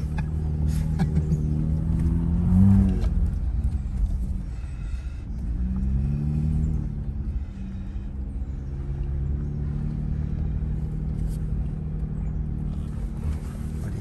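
Jeep Gladiator engine running at low trail speed, heard from the open-top cab. The engine note rises and falls briefly a couple of times as the throttle is worked.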